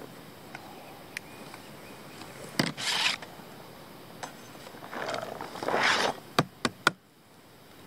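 A thin, flexible plastic cutting sheet crinkling as it is picked up and bent into a chute, and chopped onion sliding off it into an aluminium bowl. Near the end come three quick sharp taps as the sheet is knocked against the bowl.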